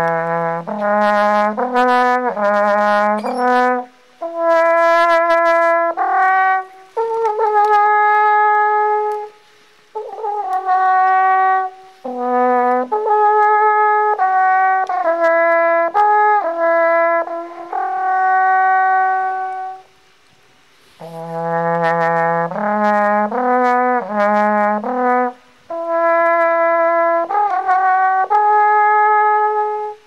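Alphorn played solo: a slow melody of held notes in phrases with short breaths between them, the opening phrase coming back about 21 seconds in.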